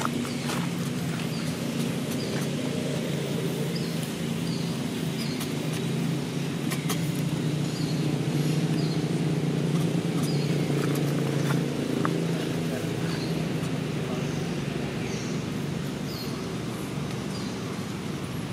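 Low, steady rumble of a vehicle engine, swelling about halfway through and then easing off, with faint short high chirps scattered throughout.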